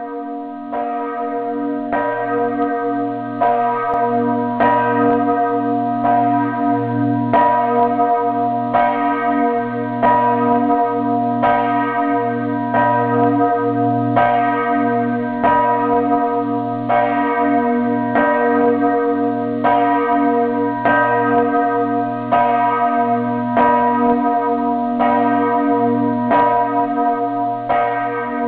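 A large church bell tolling steadily, one stroke about every second and a half, each stroke ringing on over a constant low hum.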